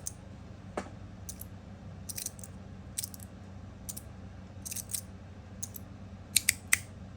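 Stainless steel magnetic fidget slider being slid back and forth by hand, its plates clicking as the magnets snap them into place, about once a second and sometimes twice in quick succession.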